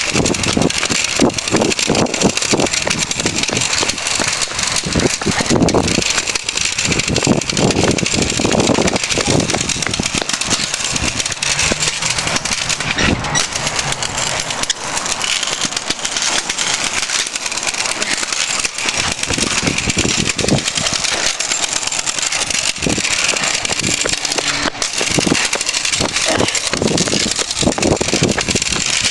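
Continuous rushing and rattling of kick scooter wheels rolling over pavement, with wind buffeting the microphone as the camera moves along.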